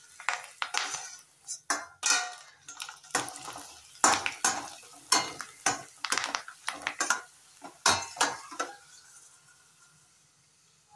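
Steel slotted spoon clinking and scraping against a steel kadai while stirring potato chips in hot oil and lifting them out, with the oil sizzling. The clinking stops about nine seconds in.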